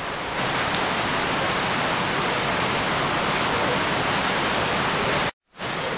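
Steady, even hiss with no distinct events in it. It drops out completely for a split second about five seconds in, then carries on.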